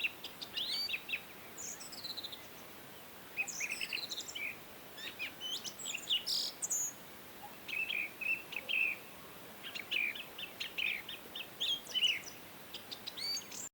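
Several songbirds chirping and calling: quick repeated chirps, short trills and thin descending whistles, one bird after another, over a faint steady background hiss.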